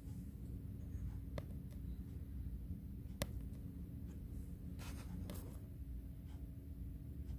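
Light handling noises over a steady low hum: a small click, then a sharp click about three seconds in, and a brief scrape or rub a couple of seconds later.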